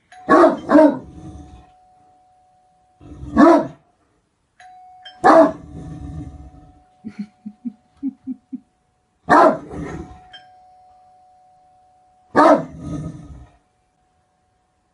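Great Dane barking: deep single barks spaced a few seconds apart, six in all, the first two in quick succession. A faint steady tone hangs between the barks.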